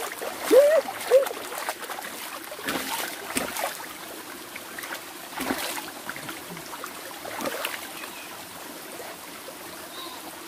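Shallow mountain stream trickling over rocks while a person washes her head in it, with several splashes of water. A short vocal sound comes about half a second in.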